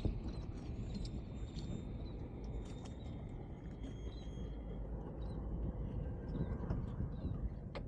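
Steady wind rumble on the microphone aboard a small open boat, with faint high chirps throughout and a sharp click near the end.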